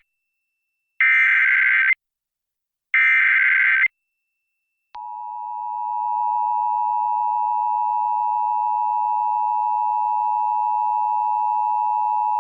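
Emergency Alert System signal opening a flash flood warning. First come two buzzy bursts of SAME digital header data, each about a second long and a second apart. Then, about five seconds in, the two-tone attention signal (853 and 960 Hz) swells in over a second and holds steady.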